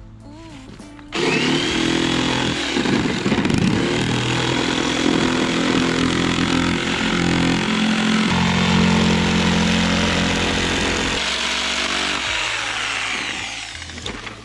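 Electric jigsaw cutting a circle out of a thin sheet of leftover wood panel: it starts about a second in, runs steadily with a high motor whine, and fades out near the end as the disc comes free.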